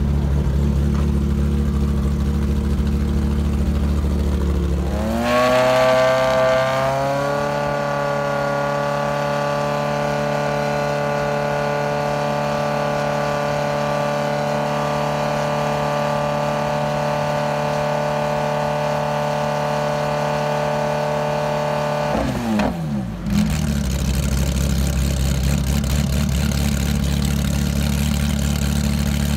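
Ferrari 360 Challenge race car's mid-mounted V8 idling, then revved up about five seconds in and held at a steady raised speed for some fifteen seconds before dropping back to idle.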